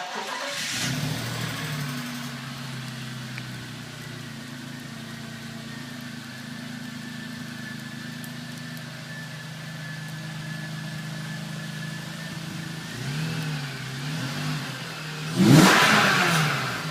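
A 2001 BMW Z3 3.0i inline-six on its stock exhaust fires up and settles into a steady idle after the start flare. Near the end the throttle is blipped a few times, with one loud rev about fifteen seconds in.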